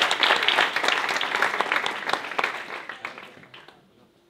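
Audience applause, many hands clapping at once, dying away about three and a half seconds in.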